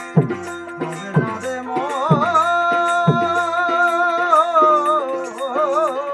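Bengali Baul folk music: a drum struck about once a second over a steady drone, with a long wavering melody note held through the middle.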